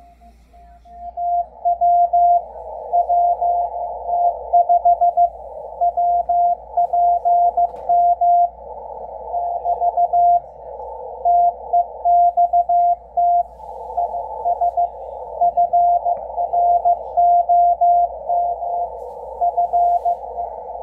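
Morse code (CW) from the ARRL's W1AW code-practice transmission on the 80 m band, received on a Yaesu FTdx10 transceiver: a steady tone near 700 Hz keyed in dots and dashes. It sits over a narrow band of hiss that starts about a second in and swells a little at times.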